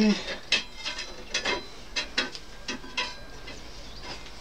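A series of about ten sharp, irregular clicks and light knocks, thinning out towards the end.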